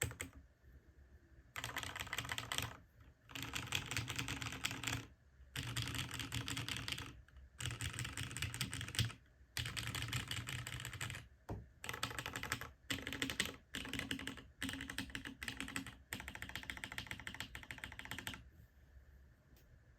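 Typing on a custom mechanical keyboard, a Hineybush HBCP with a top-mounted FR4 plate and lubed Cherry MX Black linear switches under GMK keycaps. The typing comes in fast runs of one to two seconds with short pauses between them and stops near the end.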